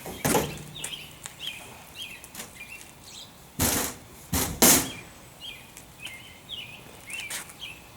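A small bird chirping over and over in short, quick notes, with two brief loud scratchy noises about three and a half and four and a half seconds in.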